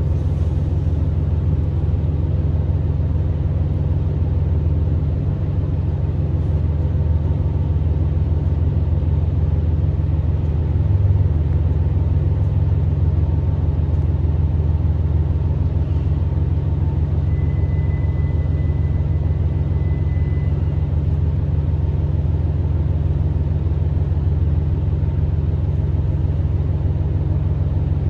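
Cabin noise inside a Tosa Kuroshio Railway 9640 series diesel railcar: a steady low engine and running rumble as the train slows into a station. A faint thin squeal lasts a few seconds about two-thirds of the way through.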